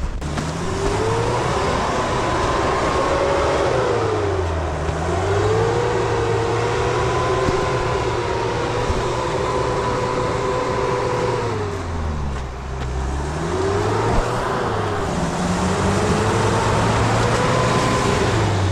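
4x4 off-road vehicle driving, its engine revs rising and falling, easing off about four seconds in, again at about twelve seconds, and near the end. A whine rises and falls with the engine.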